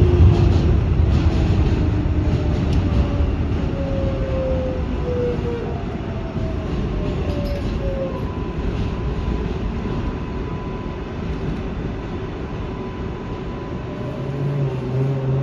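New York City R188 subway car running on an elevated line: steady rumble of wheels on rail that eases off over the first several seconds. A few faint whines slide down in pitch, and a short low hum comes in near the end.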